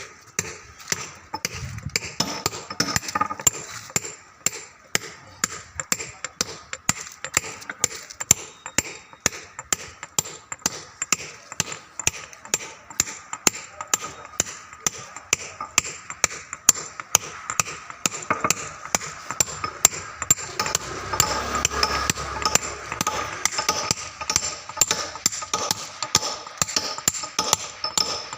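Hand hammer striking a steel chisel on stone, pecking the surface rough: a steady run of sharp metallic taps with a slight ring, about two or three a second.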